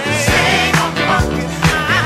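Funk recording playing: a steady drum beat about twice a second under bass, with wavering melodic lines above.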